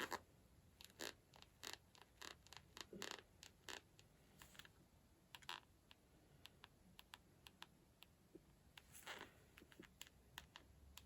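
Faint, irregular clicks and taps with a few brief scrapes: small nail-art tools and pots being handled on a tabletop during nail painting.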